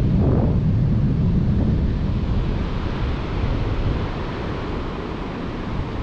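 Wind buffeting the microphone over the steady wash of ocean surf, with a heavy low rumble; it eases a little past the middle.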